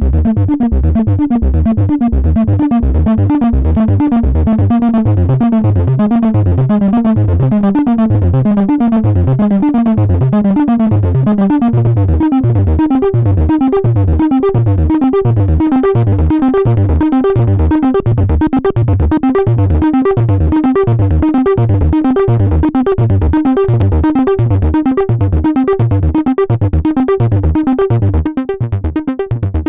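Acid-style bass line from a Behringer System 100 analog modular synthesizer: a fast, even run of repeating bass notes whose brighter upper tones shift as the filter moves.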